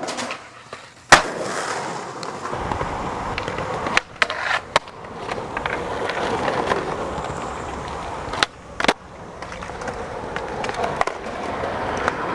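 Skateboard wheels rolling on concrete, broken by sharp clacks of the board hitting the ground as tricks are popped and landed: the loudest clack about a second in, then pairs of clacks around four seconds in and again near nine seconds.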